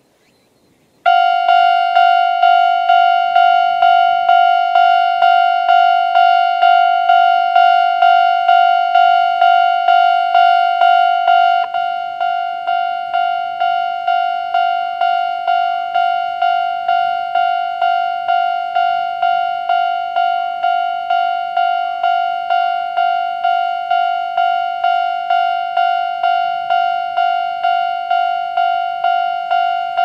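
Japanese railway level-crossing warning bell, the older standard electronic tone, starting about a second in and ringing in an even, rapid series of dings. It gets a little quieter about twelve seconds in, after the barrier arms are down, and keeps ringing.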